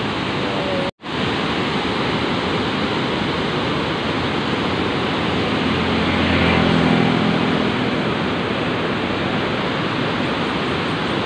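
Steady roar of a large waterfall and its white-water river rushing through the gorge below. The sound drops out for a moment about a second in.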